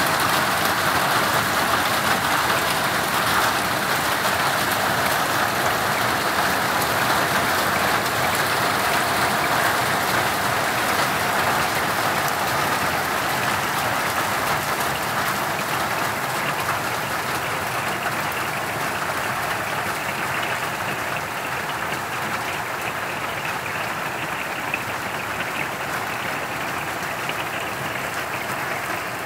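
Hail and heavy rain coming down in a dense, steady clatter, easing slightly toward the end.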